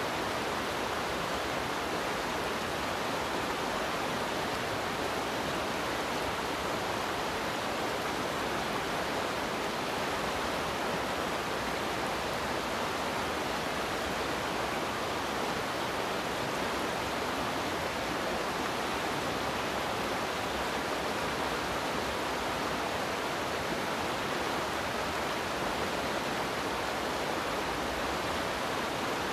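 Fast river water rushing over a rocky riffle: a steady, unbroken rush.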